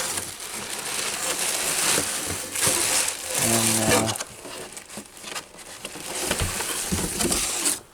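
Plastic packaging bag crinkling and rustling as it is handled, a dense crackling that carries on until it stops just before the end.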